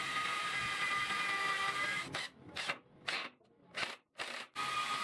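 Electric drill running as screws are driven into a wooden frame: a steady motor whine for about two seconds, then a few short pulses with silent gaps between them, then steady again near the end.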